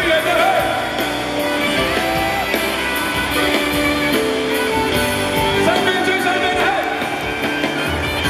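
A live pop-rock band playing loudly in a large arena, heard from among the audience: a steady drum beat under held chords, with singing voices over it.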